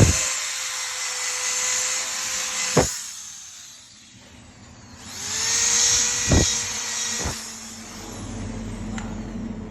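A small high-speed electric motor running with a steady whine and hiss. It winds down about three seconds in, starts up again with a rising whine about two seconds later, then stops, with a sharp click at each switch-off and switch-on.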